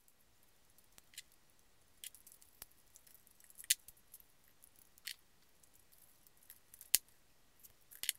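A leather knife sheath with metal snaps and rivets being handled: faint rustling with half a dozen scattered sharp clicks and taps, the one near seven seconds in the loudest.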